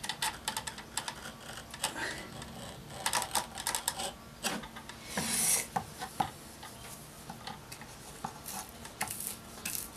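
Cutting into a deer's leg by hand: scattered clicks, taps and scrapes, with one longer scraping stroke about five seconds in.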